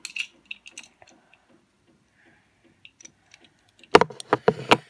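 Handling noise from a camera lying lens-down: a few small taps and clicks, a near-silent stretch with faint ticks, then a cluster of louder knocks and rustles about four seconds in as it is picked up and moved.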